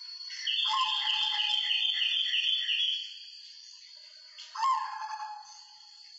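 White zebra dove (perkutut) cooing: a quick rattling run of about eight notes lasting some two and a half seconds, then a shorter single call. A steady high whine sounds throughout.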